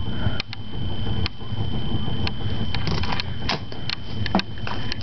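Handling of plastic wrestling action figures: scattered light clicks and knocks as the figures are picked up and moved. Underneath runs a steady low rumble with a thin high whine.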